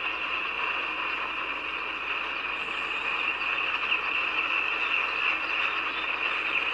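Freight train of tank cars rolling past a grade crossing: a steady hiss of wheels on rail, with little low rumble.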